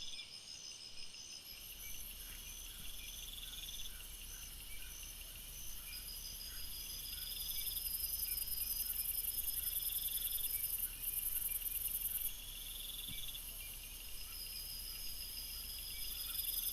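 A chorus of crickets and other insects: a steady high trill overlaid by repeating buzzing phrases, each swelling for a second or two and then stopping.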